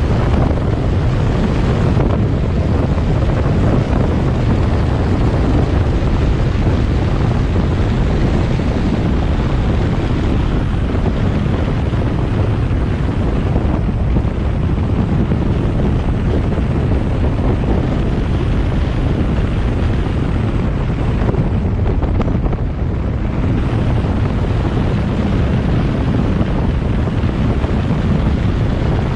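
Car driving along a road: a steady, loud low rumble of wind buffeting the microphone mixed with road and engine noise.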